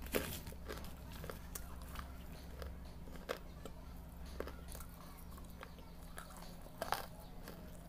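Someone biting and chewing dry red clay chunks: scattered sharp crunches, the loudest cluster about seven seconds in, over a steady low hum.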